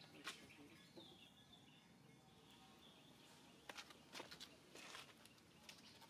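Near silence: faint outdoor ambience with a few soft clicks and taps, and a faint high thin call lasting about a second and a half, starting about a second in.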